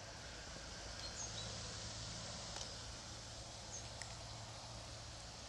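Quiet outdoor riverbank ambience: a steady hiss with a few brief, high bird chirps, the first about a second in and another near four seconds.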